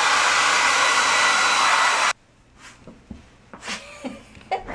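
Handheld hair dryer blowing steadily while drying a wet dog's fur, switched off abruptly about two seconds in. A few faint, brief sounds follow.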